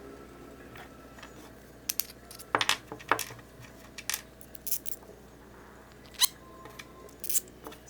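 Small hard parts clicking and clinking, a dozen or so separate sharp knocks at uneven intervals, as pieces are picked up, set down and fitted by hand.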